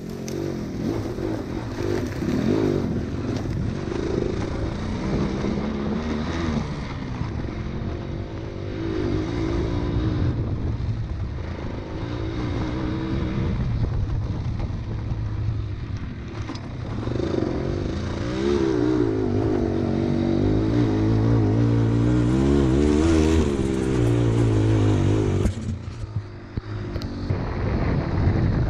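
Suzuki MX125 off-road motorcycle engine running while ridden, its revs rising and falling with the throttle; the sound drops away briefly near the end.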